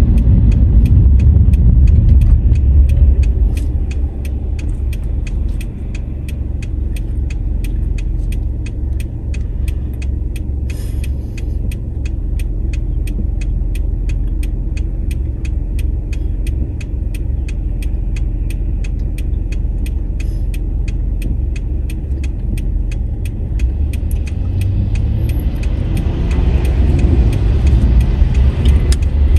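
Heard from inside a car: low engine and road rumble eases as the car slows to a stop, the engine idles quietly while it waits, and the rumble rises again as the car pulls away near the end. The turn-signal indicator ticks steadily, about twice a second, the whole time.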